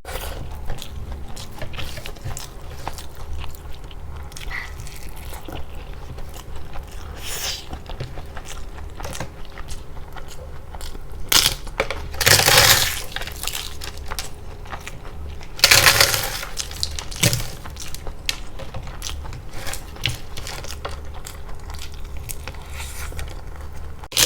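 Close-miked eating: chewing and crunching bites with wet mouth clicks, and twice, around the middle, a louder burst lasting about a second.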